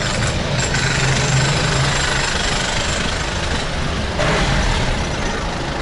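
Road traffic heard from inside a moving taxi: its engine running under a steady street rumble, with a brief louder surge about four seconds in.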